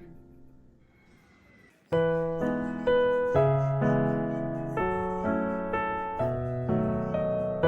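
Background piano music: the tail of an earlier passage fades out, and about two seconds in a new piano piece starts with notes and chords struck roughly every half second, each dying away.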